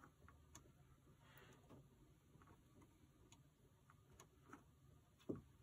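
Near silence with faint, irregular ticks of multimeter probe tips touching the soldered chip pins on a pinball MPU board, and one soft thump near the end. The meter gives no continuity beep: no pins are shorted together.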